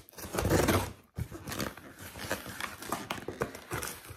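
Scissors blade slitting the plastic packing tape along a cardboard box's seam: a loud rasp for about the first second, then a run of quick crackling clicks as the tape is cut open.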